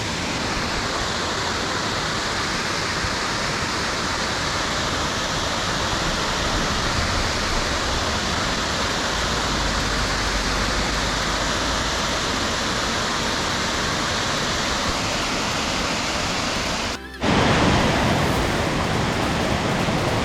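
Bald River Falls rushing, a steady, even roar of falling water. It cuts out for a moment about seventeen seconds in, then comes back a little louder.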